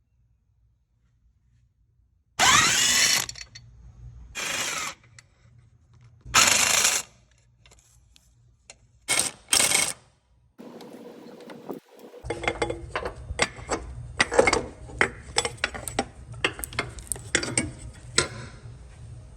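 A power tool run in three short bursts, then two brief ones, while fasteners are worked during an alternator replacement. After that come many sharp metal clicks and knocks of hand tools and parts over a steady low hum.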